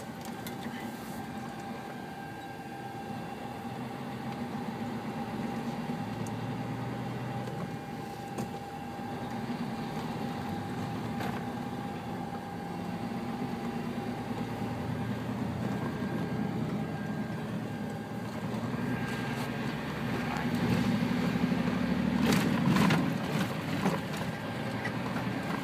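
A truck's engine and road noise heard inside the cab while driving, a steady low hum with a faint steady whine, growing louder for a few seconds near the end.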